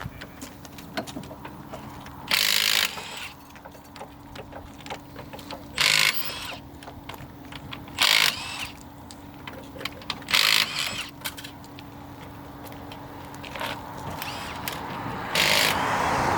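Pneumatic impact wrench spinning wheel nuts during a tyre change, fired in five short bursts of under a second each, with small clicks and clanks of tools between them over a steady low hum.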